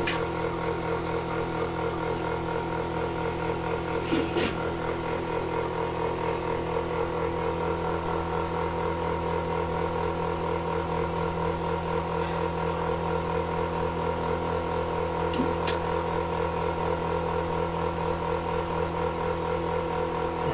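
Milking machine running: a steady motor hum with a fast, even pulsing beat, as from the pulsator, and a couple of brief clicks.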